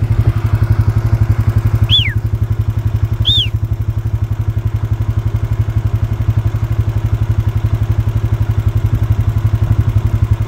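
A vehicle engine running steadily at low revs, with an even, pulsing low rumble. Two short high chirps rise and fall about two and three seconds in.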